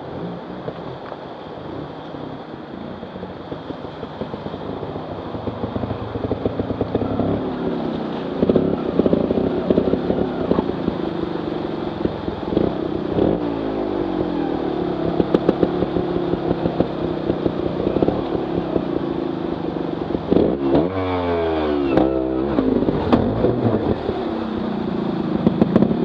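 Stream water rushing over rocks, joined after a few seconds by a trials motorcycle engine. The engine revs up and down again and again, in a run of short rises and falls in pitch.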